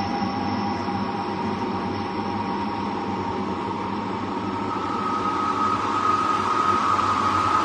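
An 'incoming' sound effect: a steady noisy rush with several held tones. A high thin tone fades out about halfway, while a mid tone swells and the whole sound grows louder toward the end.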